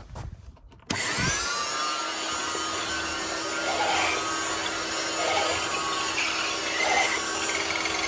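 Filter Queen 231UK vacuum cleaner with its electric power head switched on about a second in, spinning up with a brief rising whine and then running with a pretty noisy rasping drone that drowns out the suction motor. The noise swells about every second and a half. The owner can't say whether the power head's motor or a dodgy brush roll causes it.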